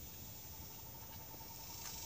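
Woodland ambience: a faint, steady high-pitched insect buzz in the trees, with a thin steady tone underneath and a couple of light ticks near the end.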